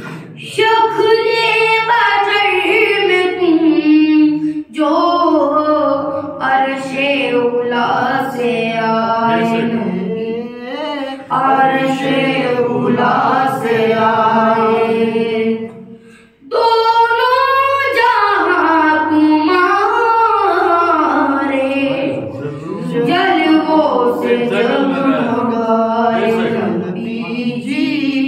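A boy's solo voice chanting an Urdu devotional salam without instruments, in long drawn-out melodic phrases, with a brief pause for breath about halfway through.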